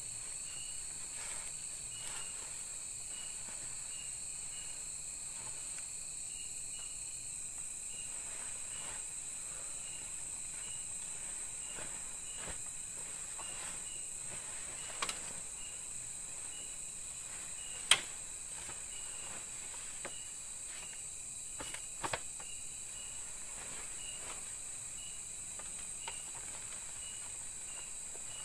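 Night-time forest insect chorus: a steady high-pitched drone with a short chirp repeating at an even pace. A few sharp clicks or knocks stand out, the loudest a little past the middle.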